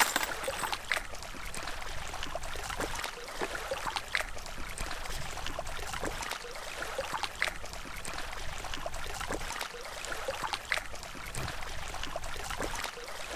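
Flowing river water: a steady rush with many small splashes and trickles.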